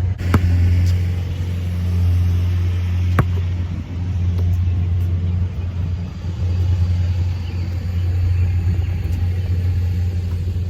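Steady low rumble, with two sharp knocks, one just after the start and one about three seconds in.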